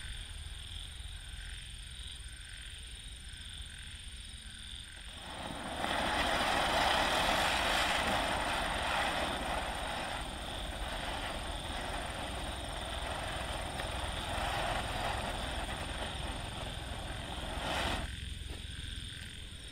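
Ground spinner firework (chakri) spinning and hissing. A steady rushing hiss starts suddenly about five seconds in, is loudest at first, and cuts off abruptly near the end.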